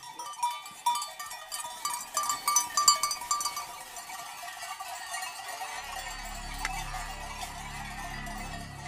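Many sheep bells clanking as a large flock moves, thickest in the first few seconds and then thinning out. Soft low background music comes in about six seconds in.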